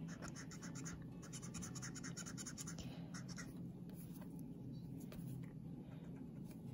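Copic alcohol marker nib scratching on paper in a run of quick, short back-and-forth strokes for about three seconds, then a few scattered single strokes.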